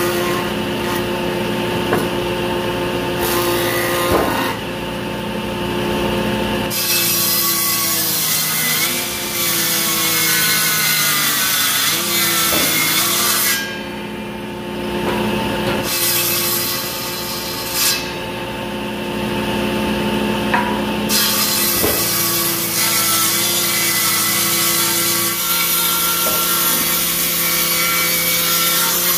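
Table saw running steadily, ripping the bark-covered edge off a rough board in several long cuts, the cutting noise swelling as the blade bites into the wood and easing in short gaps where the blade spins free.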